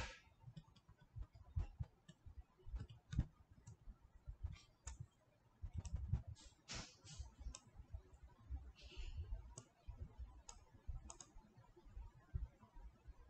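Faint, irregular clicks of a computer mouse button as objects are selected and dragged, with soft low thumps beneath some of them and a brief hiss about nine seconds in.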